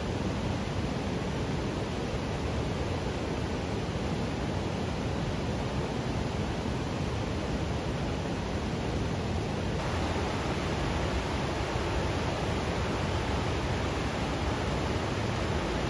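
Steady rushing noise, even and unbroken, brightening slightly about ten seconds in.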